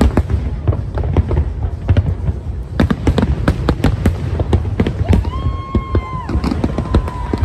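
New Year's Eve fireworks display: shells bursting in rapid succession, a dense run of sharp bangs and crackles over a continuous deep rumble. About five seconds in, a long high-pitched tone rises, holds for over a second and falls away, rising over the bangs.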